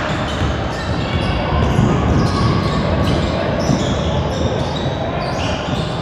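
A basketball being dribbled on a hardwood gym floor, repeated thuds over the shuffle and squeak of sneakers, with players' voices calling out in the echoing hall.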